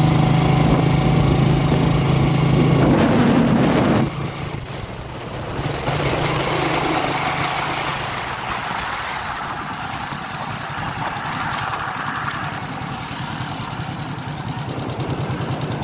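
Motorcycle engine of a tricycle running under way, loud and steady at first, then dropping off suddenly about four seconds in and running quieter, with a pulsing engine beat building again near the end.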